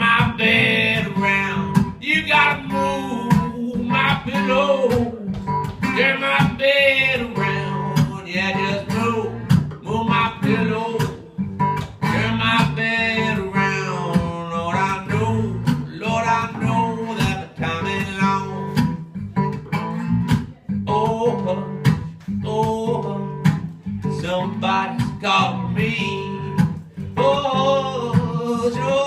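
Acoustic guitars playing country blues in open G tuning, an instrumental stretch of the song with picked and strummed notes.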